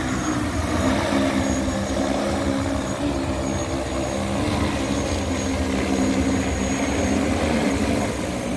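Multi-rotor agricultural spraying drone with a 20-litre tank, hovering low as it comes in to land: a loud, steady hum of its propellers whose pitch wavers slightly as the motors adjust.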